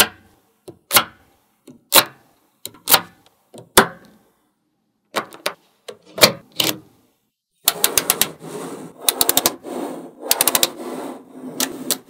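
Small magnetic balls snapping against each other: single sharp clicks about once a second at first, then from about eight seconds in a dense, rapid rattling clatter as many balls click together at once.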